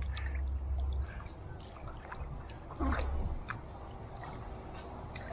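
Swimming-pool water sloshing and trickling around a camera at the water's surface, with a low rumble that swells in the first second and again about three seconds in.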